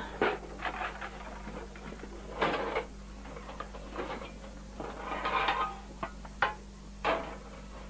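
A metal cooking pot and its lid clattering in a few short knocks and scrapes, over a steady low hum.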